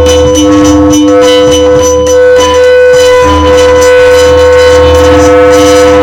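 Loud electronic music: a held high note over a deep drone, with quick repeated notes on top.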